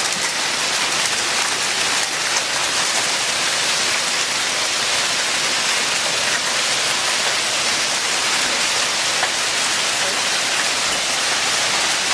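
Hail falling hard and steadily: a dense, even hiss of many small ice pellets striking surfaces.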